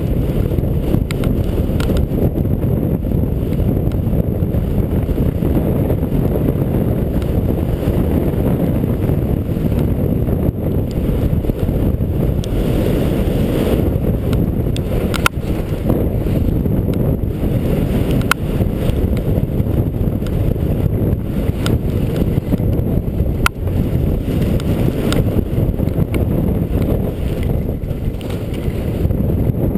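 Steady, loud wind rush over an action camera's microphone while skiing downhill, mixed with skis sliding on snow, broken by a few sharp clicks.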